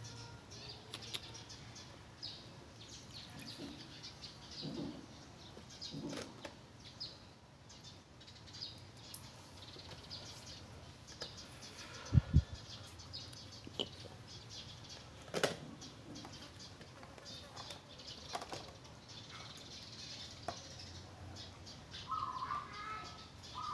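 A young monkey splashing and pattering in puddles and a plastic basin of water, with scattered taps and knocks against a plastic stool and one heavy thump about twelve seconds in. Faint high chirps come and go.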